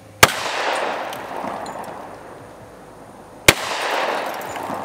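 Two gunshots from a 10mm firearm loaded with Buffalo Bore Dangerous Game rounds, about three seconds apart. Each shot echoes and dies away over a second or two.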